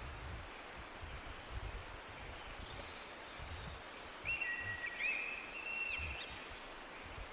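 Outdoor ambience: a steady hiss with irregular low rumbles, and a short series of clear whistled calls, like a bird's, about four to six seconds in.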